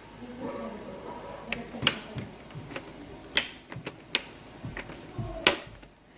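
Handling of a laptop during a screen repair: irregular sharp clicks and taps of plastic parts and tools, the loudest about two, three and a half and five and a half seconds in.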